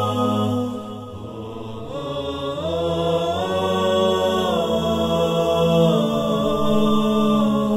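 Intro music of wordless, chant-like voices holding long notes together, sliding up to new notes a few times.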